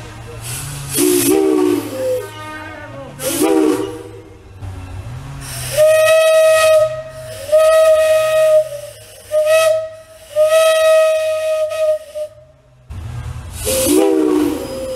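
Railroad steam whistles blown on compressed air rather than steam, with a strong hiss of escaping air. A chord of several whistle tones swoops up in pitch as the valve opens, twice in the first few seconds and again near the end. In between, a single steady whistle tone sounds in four blasts of about a second each.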